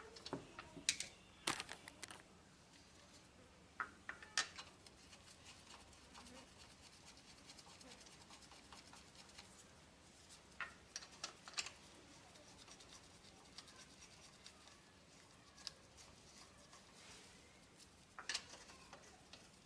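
Faint, scattered clicks and scrapes from hand work on the car while the fender cover and wheel go back on, coming in small clusters with quiet stretches between.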